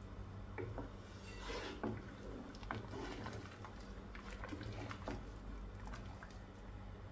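Wooden spoon stirring broth in a cooking pot as chicken bouillon cubes dissolve: liquid swishing and sloshing, with scattered light taps of the spoon against the pot, over a steady low hum.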